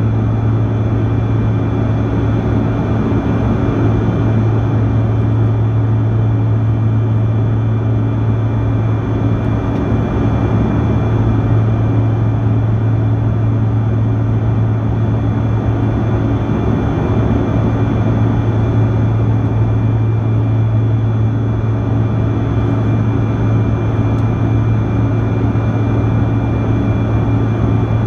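Steady jet noise inside the cabin of a Bombardier CRJ-200 regional jet, from its rear-mounted General Electric CF34 turbofans. A deep, even hum runs under a rushing noise, with faint steady high whine tones from the engines.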